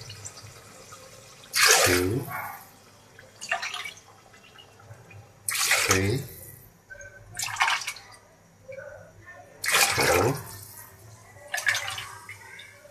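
Water poured by the cupful into an aluminium pot of tomato paste, splashing in several short pours a few seconds apart, the loudest about every four seconds.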